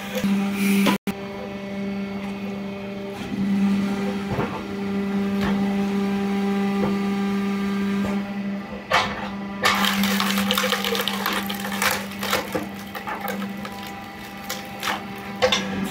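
Hydraulic log splitter's motor and pump humming steadily, with a burst of cracking and splintering wood from about nine to twelve seconds in as the ram forces a log section through the wedge.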